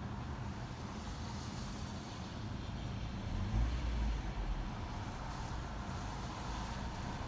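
A 2017 Toyota Corolla's four-cylinder engine idling with a rattle: a steady low running with a fast, uneven flutter, and a brief louder low swell about halfway through.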